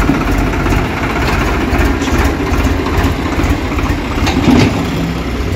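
Swaraj 735 XT tractor's three-cylinder diesel engine running steadily while pulling a trolley.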